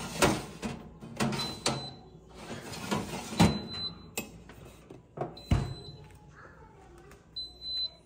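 Chrome wire racks of a Wolf Gourmet Elite countertop convection toaster oven clanking and rattling as they are slid and pushed in. Short high beeps from the oven's control panel sound several times in between, the last one near the end.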